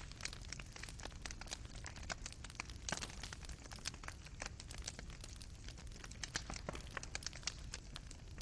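Fire burning in a fireplace, the coals crackling with irregular sharp pops and snaps over a low steady rumble; one louder pop about three seconds in.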